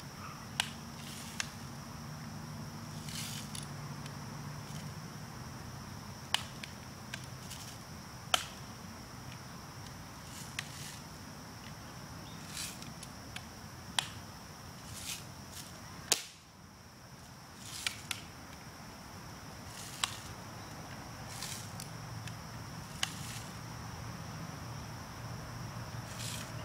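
Sharp snaps and clicks of a Daisy BB gun being fired and handled, about a dozen spread irregularly, the loudest about 16 seconds in. A steady high insect drone runs underneath.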